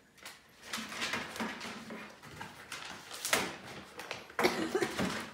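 A ring binder of sheet music being handled and its pages flipped: a run of paper rustles and light knocks, with a sharper knock about three seconds in and another about a second later.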